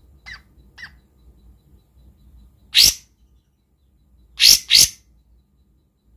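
Caged kapas tembak bulbul giving sharp, harsh besetan calls: very short upward-sweeping notes, two faint ones near the start, one loud one about three seconds in, and a quick loud pair about a second and a half later.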